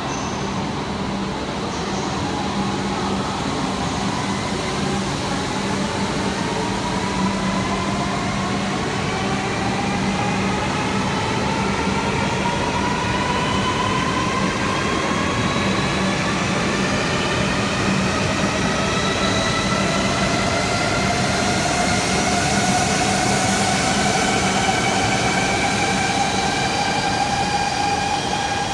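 Shinkansen bullet train pulling out and accelerating, its electric traction motors giving a whine of several tones rising steadily in pitch over the rumble of the train.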